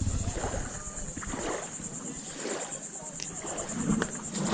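Insects trilling: a steady, high, rapidly pulsing chirr, with faint voices underneath.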